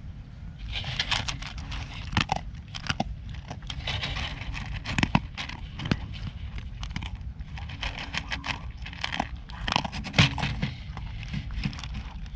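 Pets crunching and chewing dry food: irregular crisp crunches and crackles, over a steady low rumble.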